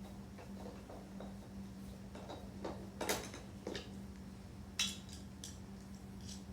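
Light clicks and clinks of small parts being handled as the fuel selector switch is taken out and worked on, with two sharper clicks about three and five seconds in. A steady low hum runs underneath.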